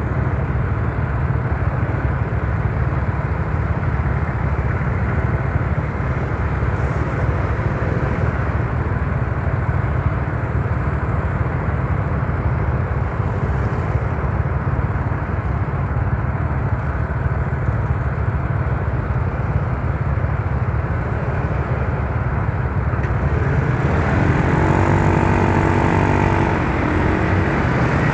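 Riding on a Yamaha Mio Soul scooter: steady rush of wind on the microphone over the running engine, with a pitched drone rising in for a few seconds near the end.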